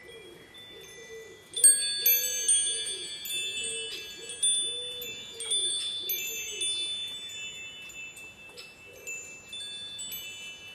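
Wind chimes ringing, the tubes struck at irregular moments so that clear high tones overlap and ring on. A first strong strike comes about a second and a half in.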